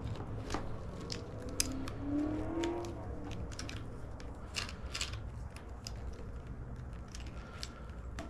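Scattered small clicks and plastic rattles of hands working motorcycle wiring connectors and their retaining clips, over a steady low hum.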